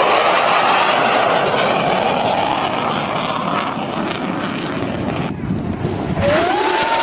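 Jet fighter flying past with a loud rushing roar. About five seconds in the noise thins briefly. Then a rising engine whine comes in and holds near the end.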